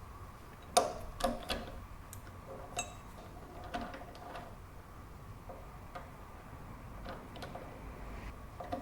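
Scattered light clicks and metallic knocks as the workpiece is taken out, flipped and set back in the lathe, over a faint steady hum. The loudest click comes about a second in.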